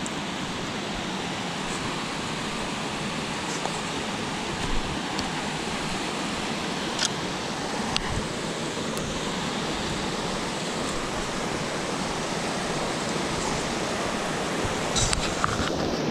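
Creek water rushing steadily over rocks below a spillway, with a few light clicks over it.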